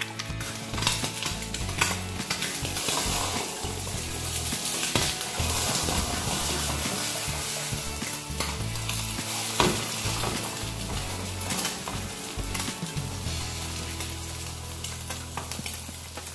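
Three eggs frying in a pan, sizzling steadily, with a few sharp knocks and scrapes of a utensil against the pan.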